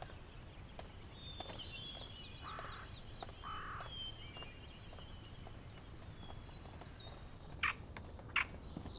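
Faint background birdsong: thin, broken twittering runs on, with a few sharper short chirps near the end. Two brief soft sounds come about three seconds in.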